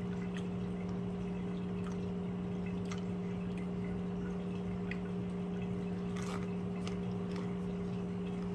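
Close-up mouth sounds of someone chewing a hot chicken finger: faint wet clicks and smacks every second or so. A steady low hum with a higher tone above it runs underneath.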